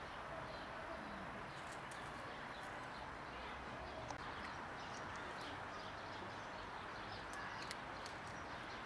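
Faint, irregular crunching clicks of cats chewing dry kibble over a steady outdoor background hiss.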